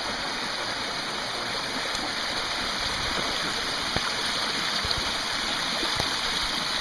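Steady rushing of a mountain stream spilling down a small rock cascade.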